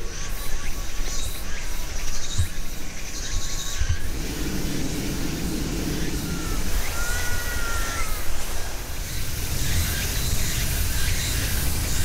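Summer woodland ambience: scattered bird calls, with two clear short whistled notes about two-thirds of the way through, over a steady high hiss and a low rumble.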